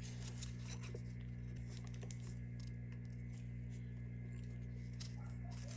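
Faint steady low hum with no change in pitch or level, and no distinct knocks or machining sounds.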